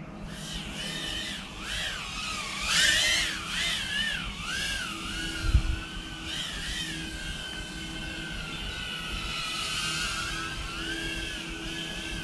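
BETAFPV Meteor 65 1S tiny whoop's brushless motors whining in flight, the pitch rising and falling with the throttle. The loudest burst of throttle comes about three seconds in, and the whine is steadier in the second half.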